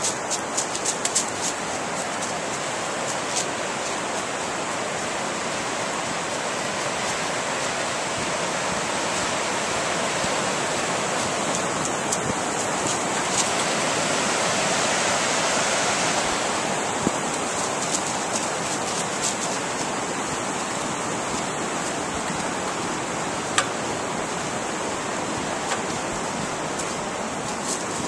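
Steady rush of river water that swells around the middle, with light crunches of footsteps in dry leaves now and then.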